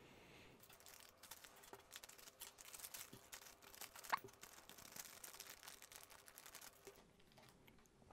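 Faint crinkling and crackling of a small plastic zip-lock bag being handled, with a slightly sharper click about four seconds in.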